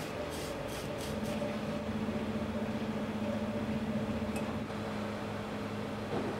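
A steady low machine hum with a few faint light clicks in the first second.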